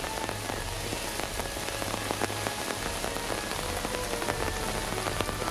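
Heavy downpour: a steady hiss of rain with many sharp ticks of drops striking close by.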